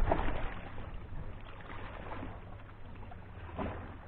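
Waterside ambience: a steady low rumble and wind on the microphone, with a short knock about three and a half seconds in.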